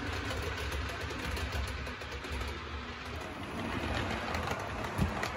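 Model train running on the layout's track: a steady low rumble of motor and wheels with faint clicks.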